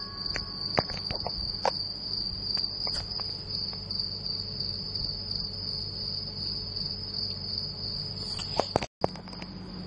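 A steady high-pitched tone that does not vary, over a low steady hum, with a few faint clicks scattered through. All sound cuts out for a split second about nine seconds in.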